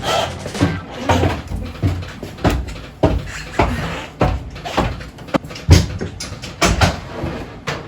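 A run of irregular knocks and clunks, one or two a second, with the loudest just past the middle.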